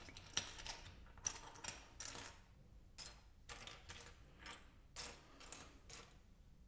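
Loose plastic LEGO pieces clicking and clattering as hands sort through them: a string of faint, irregular clicks, some single and some in quick clusters.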